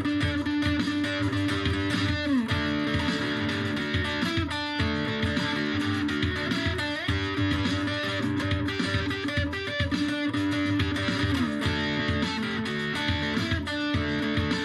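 Guitar-led instrumental music, with notes that slide smoothly from one pitch to another several times.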